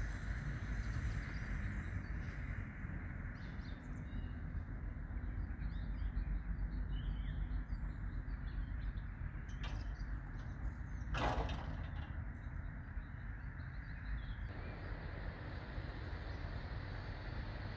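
Outdoor ambience: a steady low rumble with faint bird chirps, and one brief sharp sound about 11 seconds in.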